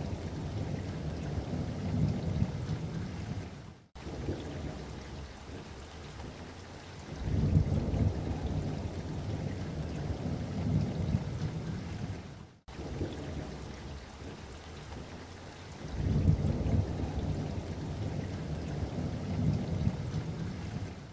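Low rumbling noise that swells and fades, broken by sudden dropouts about four and thirteen seconds in, where the same stretch starts over.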